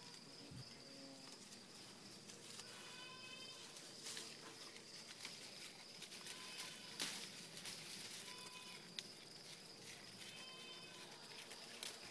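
Oberhasli goat browsing leafy weeds: faint rustling, with a few sharp snaps of stems and leaves being torn off. A steady high insect drone runs under it, and a short pitched call repeats about every two seconds.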